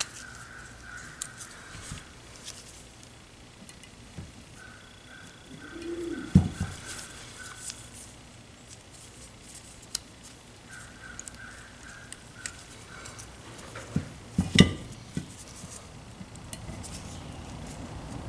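Small steel Allen wrenches clicking and clinking as they are worked out of a plastic holder and handled, with sharp knocks about 14 seconds in. A faint quick chirping comes and goes in the background.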